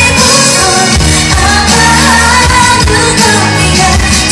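Live K-pop song played loud through a concert hall's PA, a woman singing the melody over the backing music, heard from within the audience.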